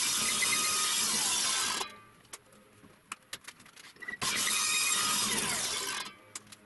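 Table saw blade cutting into the wooden dowel jig to widen its blade clearance, in two loud stretches of about two seconds each that stop abruptly. Between them are a few light clicks of hand work on the jig.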